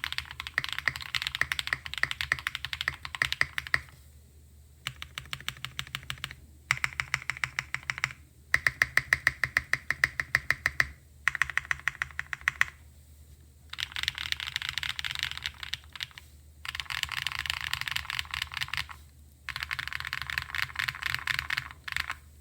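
Typing on a mechanical keyboard with lubed Cherry MX Black linear switches fitted with Cream stems, on a polycarbonate plate with a polyfill and tape mod. The keys come in runs of rapid keystrokes a few seconds long, broken by short pauses.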